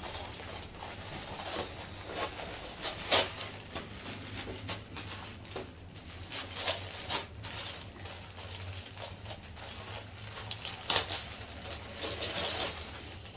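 Clear plastic clothing packaging crinkling and rustling as it is handled, in irregular sharp crackles, with a few louder ones.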